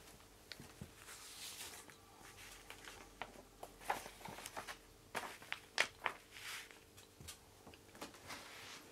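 Paper instruction manual being opened and handled on carpet: rustling pages with scattered soft clicks and taps, busiest from about four to six and a half seconds in, over a faint steady hum.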